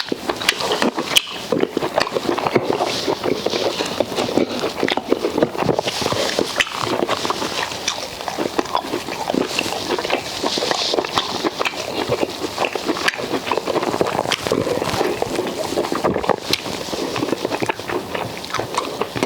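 Close-miked mukbang eating of fufu and okra soup: steady wet chewing, lip-smacking and squelching, a dense run of small irregular clicks and smacks.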